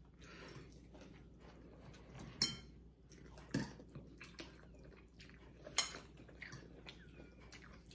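Quiet eating at the table: noodles slurped and chewed, with a few sharp clinks of metal forks and spoons against ceramic bowls.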